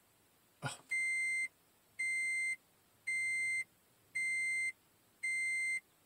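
2010 Toyota Prius dashboard chime beeping five times, evenly, about once a second, each a steady high beep lasting about half a second, while the maintenance-required reminder is being reset with the trip button held and the power button pressed.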